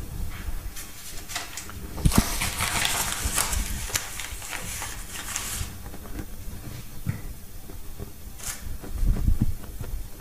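Paper flour bag rustling as a hand digs into it for about three and a half seconds, starting with a knock about two seconds in. A few dull knocks come near the end.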